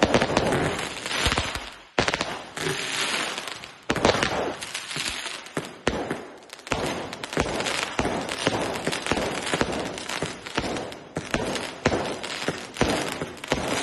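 Fireworks going off in a rapid, unbroken barrage of bangs and crackles, with heavier bangs every second or two.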